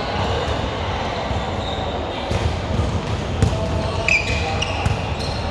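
Indoor volleyball game: the ball is struck and bounces several times, with a short high squeak about four seconds in, over the steady murmur of players and onlookers in the hall.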